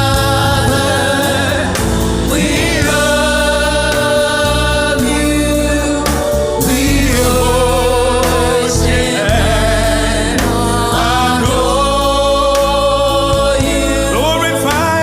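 Gospel choir and band performing, with voices holding long sung notes over a steady instrumental backing.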